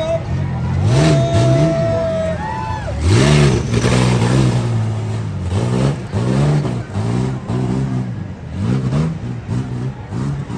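Race truck engine revving up and down over and over, with long climbs and drops early on and quicker throttle blips in the second half.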